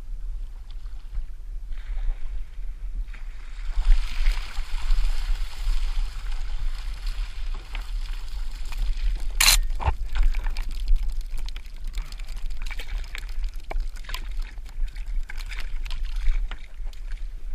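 Water sloshing and splashing around a paddleboard, with wind rumbling on the microphone. A single sharp knock about nine and a half seconds in.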